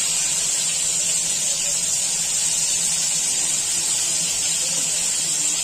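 Whole bombil (Bombay duck) fish frying in shallow oil in a pan over a full gas flame: a steady sizzling hiss.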